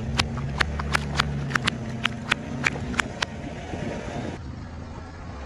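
Car tyre rolling over a row of water balloons, bursting them one after another: a string of sharp pops about three a second, over the low hum of the car's engine. The pops and the hum die away about three seconds in.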